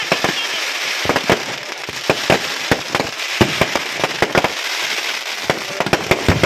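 Aerial fireworks going off: a dense, irregular string of sharp bangs and pops over a continuous crackle.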